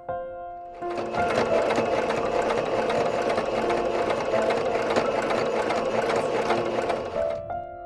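Domestic electric sewing machine stitching a straight seam through cotton fabric: a fast, even run of needle strokes starting about a second in and stopping shortly before the end, with soft piano music underneath.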